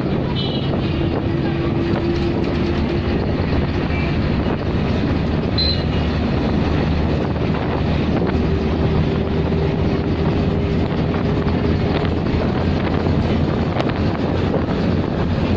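Steady rumble of engine and road noise heard from inside a moving bus, with a faint steady whine that comes in twice.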